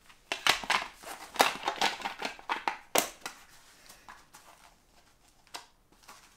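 Tools clicking and rattling as a tool case is rummaged through by hand: a quick flurry of clicks over the first three seconds, then a few scattered clicks.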